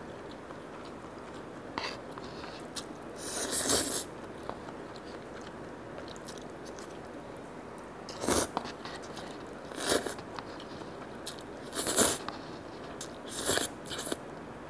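Thin konjac bibim noodles being slurped and chewed: a series of short, noisy slurps a couple of seconds apart, the longest about four seconds in.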